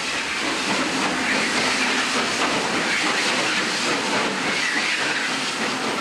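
Nilgiri Mountain Railway steam locomotive running through a tunnel: a steady hiss of steam over the train's running noise, heard inside the tunnel.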